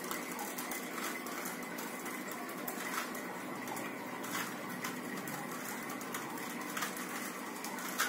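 Plastic clicks of a 3x3 Rubik's cube as its layers are twisted by hand, a few sharp clicks spaced irregularly over a steady background hiss.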